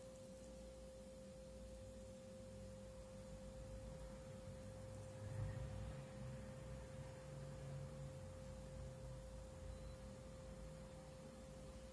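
A faint steady pure tone over quiet room noise, with a soft low rumble rising a little about five seconds in.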